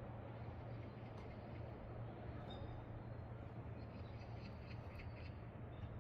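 Faint, steady seaside ambience, an even wash of noise with a low constant hum beneath it, with a few faint high chirps and ticks through the middle.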